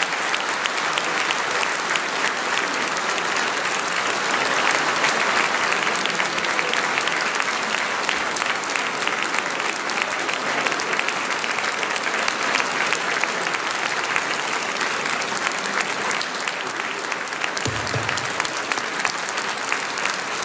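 Large audience applauding steadily, a dense mass of hand claps.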